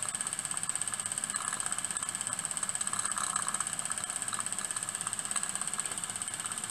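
Single-cylinder, double-acting model steam mill engine with a slide valve, running fast: a rapid, even beat of its strokes over a steady high hiss.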